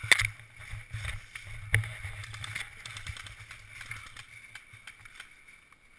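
Footsteps crunching and rustling through dry fallen leaves, with irregular handling knocks and two sharper clicks, one right at the start and one nearly two seconds in; the movement dies down toward the end.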